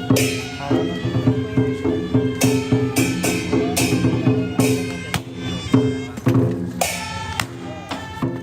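Music with drums and percussion over sustained instrument tones.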